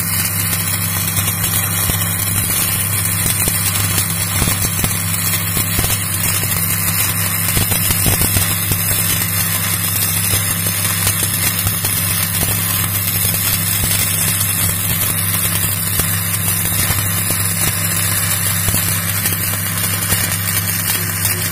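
Stick (shielded metal arc) electrode burning continuously in the root pass of a butt joint: the arc's steady crackling hiss, over a steady low hum.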